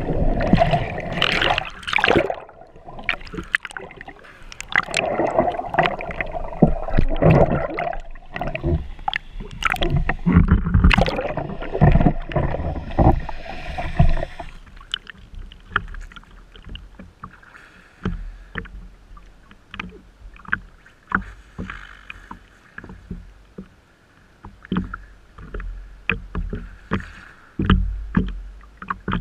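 Lake water churning and rushing around a GoPro mounted on the front of a wakeboard as the board goes under. About halfway through this stops suddenly, and quieter water laps and slaps against the floating board with small splashes.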